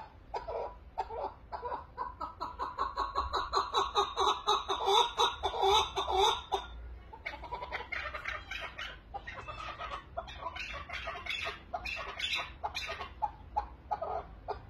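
Chukar partridge calling: a fast run of repeated chuck notes that grows louder, breaks off about seven seconds in, then resumes as a looser series of calls.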